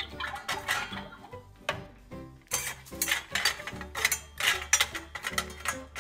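Small metal spoon clinking and tapping against small stainless-steel toy saucepans, with toy vegetable pieces knocking into a pot: a string of sharp clinks, several in each second. Light background music plays underneath.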